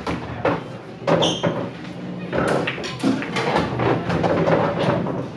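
Pool balls clacking against each other and cue tips striking the cue ball in a series of sharp knocks, one of them ringing briefly, amid bar-room chatter.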